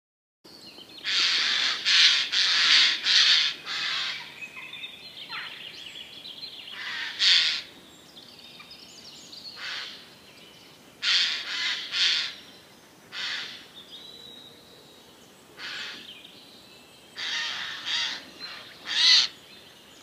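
Eurasian jay giving harsh, rasping screeches in bouts: a quick run of about five in the first few seconds, then single calls a second or more apart, and another close group near the end.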